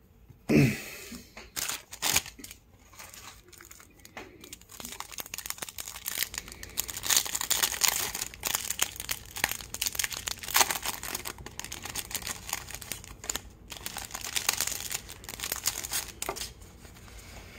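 Cellophane wrapper of a baseball card cello pack being torn open and crinkled: a dense crackle lasting several seconds in the middle, after a couple of sharp knocks near the start.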